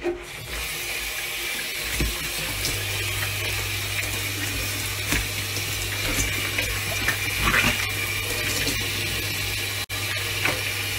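Water running steadily from a kitchen mixer tap into a stainless steel sink, a steady rushing hiss. A low steady hum joins about three seconds in.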